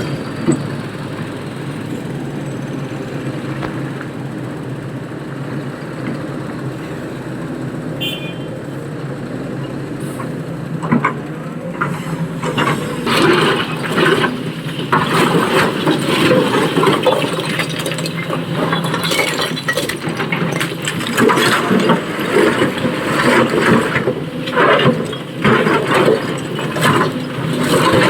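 SANY excavator's diesel engine running steadily. From about twelve seconds in, it is joined by a run of irregular loud crashes and scrapes as stone is scooped and dumped into a tipper truck.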